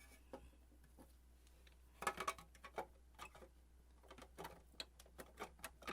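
Irregular clicks and light knocks of plastic and metal parts being handled and fitted while a sewing machine is put back together, starting about two seconds in.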